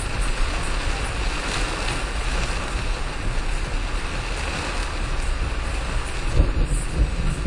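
Steady hiss and rumble inside a car driving in heavy rain: rain on the windscreen and tyres on the wet road, with a few low bumps near the end.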